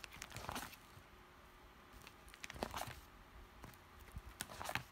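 Clear plastic sleeve pages of a trading-card binder crinkling and tapping faintly as a hand slides over the cards and turns a page, in a few short scattered rustles.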